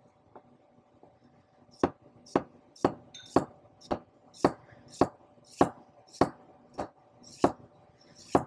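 Kitchen knife slicing fresh ginger on a wooden cutting board: about a dozen even chops, roughly two a second, the blade knocking on the board, starting about two seconds in.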